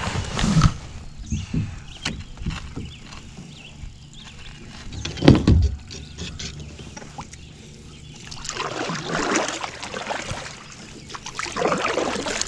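Paddleboard being launched and paddled: knocks of hands and gear against the board, one heavy thump about five seconds in, then paddle strokes in the water in the last few seconds.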